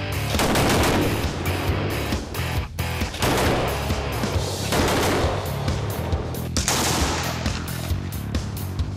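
Browning Automatic Rifle firing in bursts of automatic fire, shots following quickly one after another, over background music.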